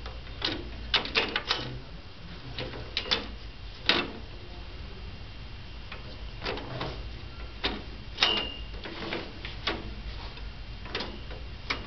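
Irregular clicks and knocks of a three-tier salon trolley's frame and side panels being handled and fitted together, with a brief high ring after a sharper knock about eight seconds in.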